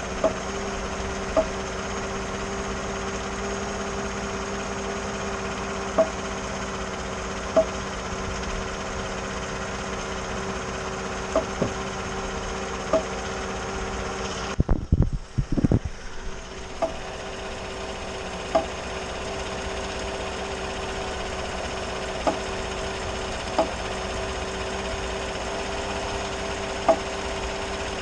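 A 2014 GMC's engine idling steadily while the truck stands still, with sharp single pops at irregular intervals, about a dozen in all, and a brief burst of louder knocks about halfway through. This is the popping the owner hears when turning the wheel under load at a standstill, which began after the electric power steering motor was replaced; its cause is unknown.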